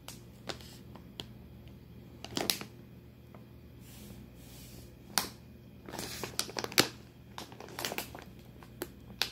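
A foil-lined plastic cookie bag crinkling and crackling as it is handled, in irregular short bursts, the loudest about two and a half seconds in and again near seven seconds.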